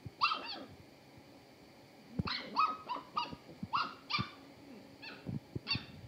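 Puppy giving short, high-pitched yips and whines: one near the start, a quick run of about seven in the middle, and two more near the end. A few soft thumps are mixed in.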